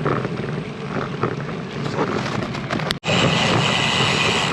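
Wind rushing over the microphone with road and tyre noise from a bicycle riding along. About three seconds in, the sound cuts out for an instant, then comes back louder with a steady high-pitched hiss.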